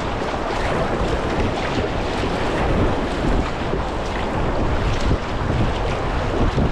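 Whitewater rapid rushing steadily, with wind noise on the microphone.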